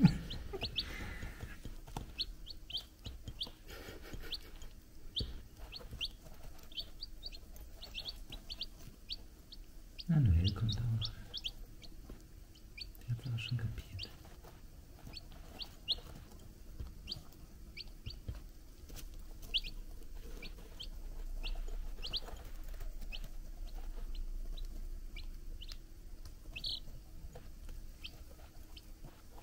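Three-day-old chicks peeping: a steady scatter of short, high cheeps, with light ticks as they peck feed from ceramic bowls. A short low sound comes about ten seconds in and again a few seconds later.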